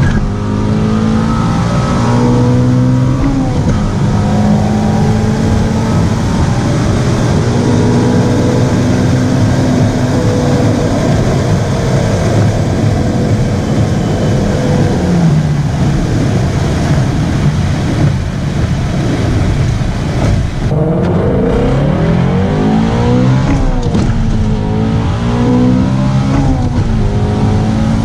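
Shelby GT350's 5.2-litre flat-plane-crank V8 running hard at high revs, its pitch holding for long stretches and then falling and rising several times in the second half, with a steady hiss under it.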